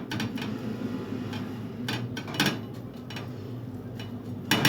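Light clinks and knocks of plates and utensils, a handful of separate taps with the loudest near the end, while chicken pieces are dipped in egg and turned in breadcrumbs.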